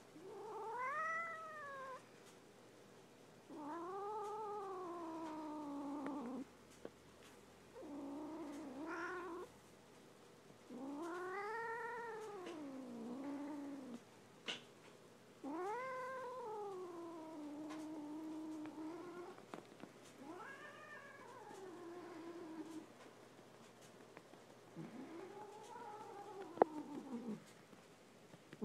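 Domestic cat yowling during rough hand play: seven long, drawn-out wails, each rising then falling in pitch, with short pauses between them. A sharp click comes about halfway through and another near the end.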